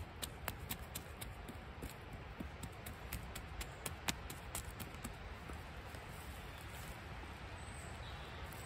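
A wooden stick scraping and poking through the ashes of a dead campfire: a run of sharp little clicks and taps through the first half that then thins out, over a steady hiss.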